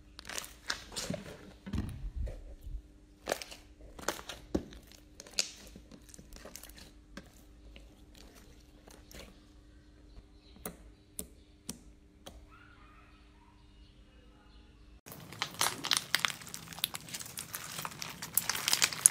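Slime being pressed and squeezed by hand: sharp pops and crackles from air bubbles in clear blue slime, thinning to sparse soft clicks. About three-quarters of the way through it changes to a dense, continuous crunchy crackle as a slime packed with small clear beads is squeezed.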